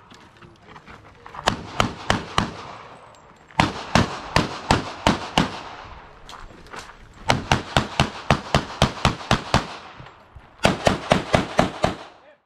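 Rapid pistol shots from a CZ TSO in strings of several shots about a quarter second apart, with pauses of one to two seconds between the strings. A last quick string comes near the end.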